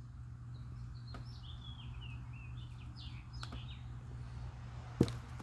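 Small birds chirping, a quick run of short chirps over a steady low hum. About five seconds in, a single sharp knock as the cardboard cone fountain is set down on the wooden board.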